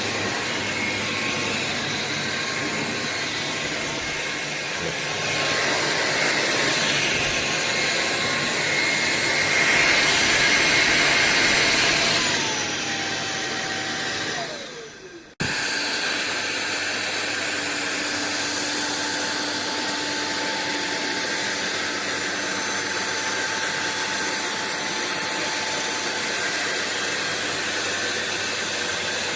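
Cordless stick vacuum (Sulean X8) running with a steady whooshing whine. About twelve seconds in its whine falls away as the motor winds down almost to silence. A moment later it is suddenly running again at full speed, and it stays steady.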